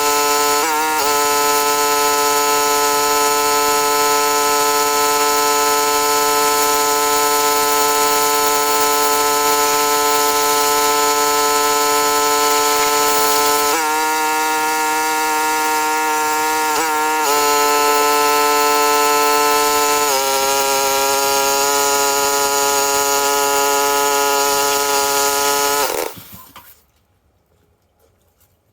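Pressure washer running steadily under load while spraying, a steady engine-and-pump whine over a hiss of water spray. Its pitch steps a few times, then it stops abruptly near the end.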